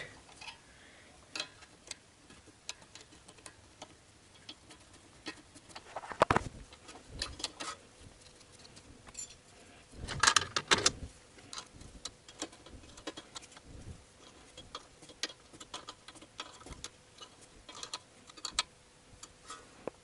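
Scattered small clicks and taps of hand work on a car's front hub assembly as the ABS sensor wire bracket is fitted into place, with louder knocks about six seconds and ten seconds in.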